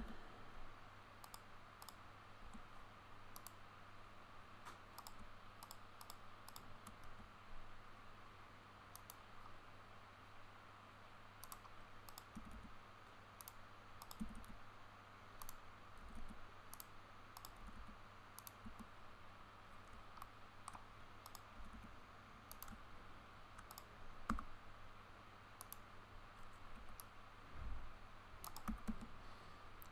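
Faint, irregular computer mouse clicks and keyboard key presses over a steady low hum.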